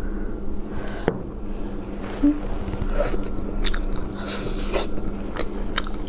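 Close-miked chewing and biting of spicy stir-fried shellfish, with short irregular mouth clicks and crackles over a steady low hum.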